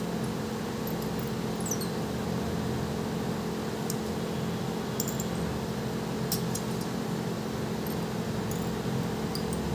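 LCD separator machine running with a steady hum while a cutting wire is wound off a spool and drawn through the adhesive between a phone's display and touch glass, with a few faint squeaks and ticks from the wire.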